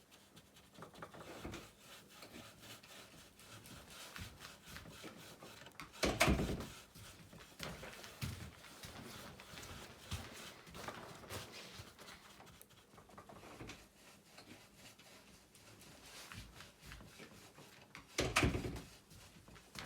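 Wax oil being brushed or wiped onto a wooden roof board, repeated rubbing strokes on the wood. Twice, about six seconds in and near the end, there is a louder wooden clatter.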